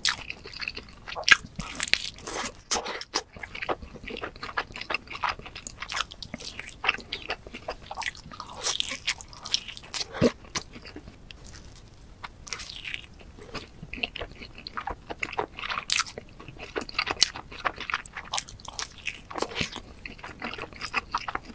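Close-miked mouth sounds of someone eating thick cheese-covered pizza: bites into the crust and steady chewing, with many short, irregular crunches.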